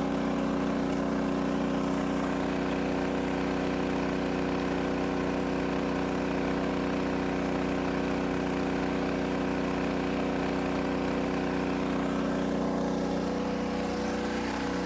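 An engine running steadily, a constant even hum whose tone shifts slightly near the end.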